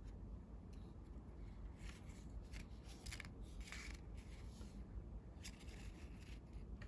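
A sheet of colored origami paper being folded and creased by hand, giving crisp crinkles and rustles in short bursts, most of them between about one and four seconds in.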